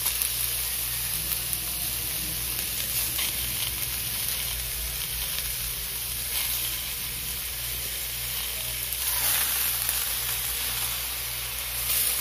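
Steady sizzling hiss from a wok heating on the stove while fish are laid into it, growing a little louder for a moment about nine seconds in.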